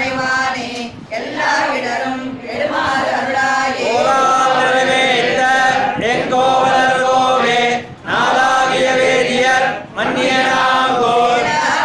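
A group of voices chanting Tamil devotional hymns in unison, as in a Sri Vaishnava sevakalam recitation. The chant runs in sustained phrases broken by short pauses for breath every second or two.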